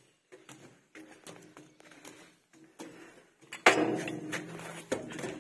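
Footsteps of sandals on a steel staircase with checker-plate treads: irregular knocks and clanks on the metal steps. About two-thirds through comes a louder clang that rings on for about a second.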